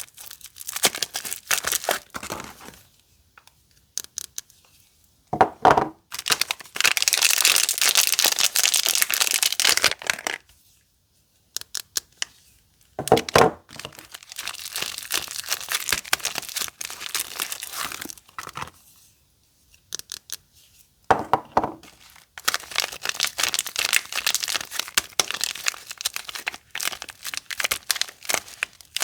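Soap wrappers being torn open and crinkled by hand: three long stretches of dense crackling and tearing, each starting just after a short handling knock, with quiet pauses between.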